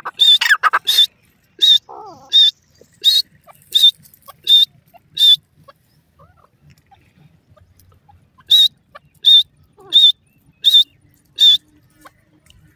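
Grey francolin calling: loud, shrill notes repeated about every 0.7 s. A first series opens with a quick run of notes, and after a pause of about three seconds a second series of five notes follows.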